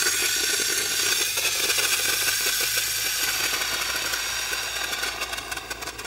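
Water spraying from a rubber garden hose: a steady hiss that trails off near the end.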